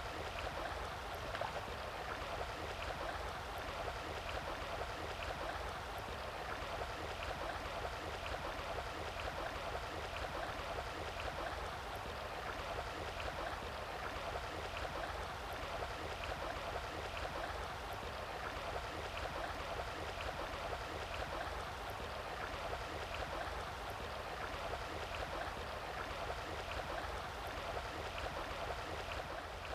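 Steady rushing of a stream's running water, with faint light ticks recurring through it.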